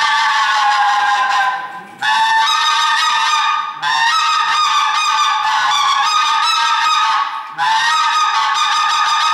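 Mouth-blown hunting call (manok) played in long, drawn-out reedy notes that step a little in pitch, with short breaks for breath about two, four and seven and a half seconds in.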